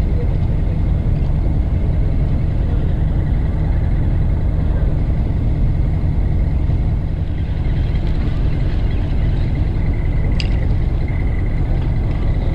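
Fishing boat's engine running, heard on deck as a steady low rumble, with a single light click about ten seconds in.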